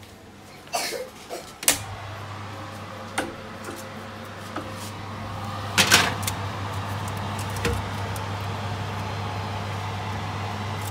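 Oven door opening with a few clunks, then a steady low hum, and the metal baking tray knocking and scraping as it is slid onto the oven rack, loudest about six seconds in.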